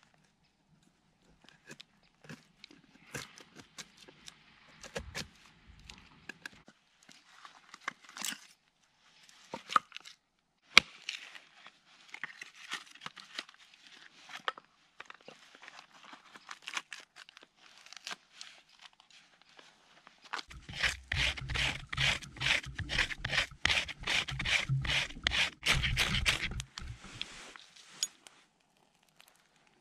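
Axe splitting and shaving birch kindling on a chopping block: scattered knocks and woody scrapes, with one sharp knock about eleven seconds in. Near the end comes a run of rapid scraping strokes, about four a second, lasting some six seconds.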